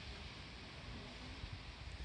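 Faint, steady outdoor background hiss with a low, uneven rumble.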